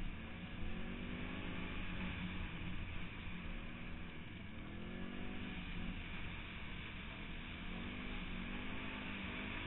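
Off-road motor vehicle engine revving up and easing off about three times while riding, under a steady rush of wind and noise over the helmet-camera microphone.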